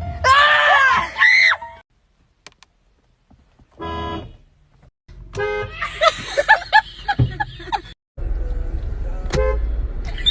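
Car horn honks and people's startled cries, in several short pieces cut off abruptly: loud cries at the start, a short honk about four seconds in, more cries mixed with honking around six to seven seconds, and another short honk near the end.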